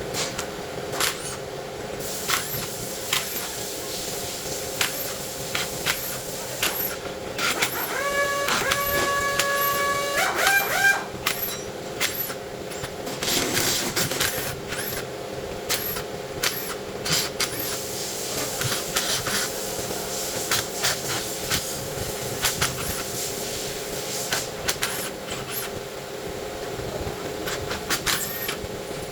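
Transmission repair work in a workshop: irregular metallic clicks and clinks of tools and parts over a steady mechanical hum, with a brief pitched tone that steps up and down in pitch for about three seconds, starting about eight seconds in.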